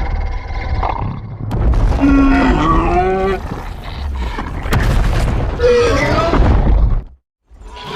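King Ghidorah monster sound effects from the 2019 film: two screeching calls that rise in pitch, over a deep, heavy rumble. The sound cuts out briefly near the end.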